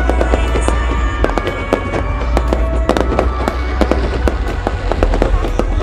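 Aerial fireworks going off in many sharp bangs and crackles, several a second, with loud music with a heavy bass playing underneath.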